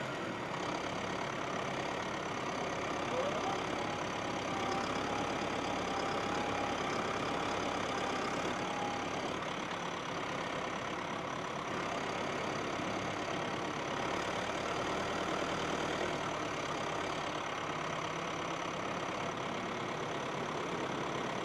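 Massey Ferguson tractor engine running steadily.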